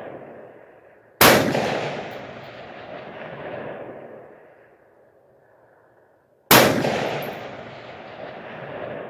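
Two AR-15 rifle shots about five seconds apart, each a sharp crack followed by a long rolling echo that swells again about two seconds later before fading.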